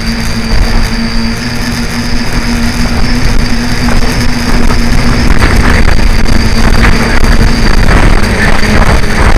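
Strong wind buffeting the microphone over the steady whine of the tricopter's electric motors and propellers in flight; the wind gets rougher and gustier about halfway through.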